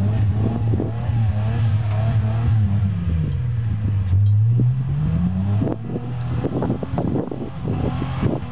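Jeep YJ on 40-inch tyres running hard in deep mud, its engine pitch sagging under load about halfway through and then rising again, with a run of knocks and clatter in the second half. The Jeep is bogging down and getting stuck.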